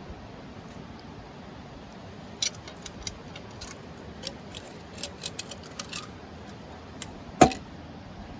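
Small hard objects clicking and clinking: a dozen or so light, sharp taps starting about two seconds in, then one louder knock near the end.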